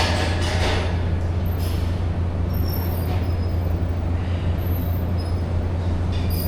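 Steady low hum with soft clinks of weights about every second and a half during a set of flies.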